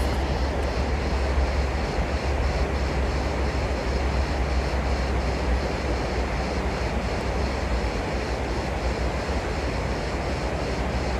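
Steady low rumble of outdoor background noise, like distant traffic, with a faint, rapidly pulsing high hiss over it.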